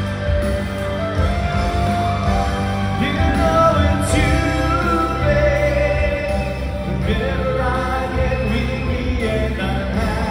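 A male singer singing a serenade into a handheld microphone over instrumental backing with a strong bass, his long held notes wavering.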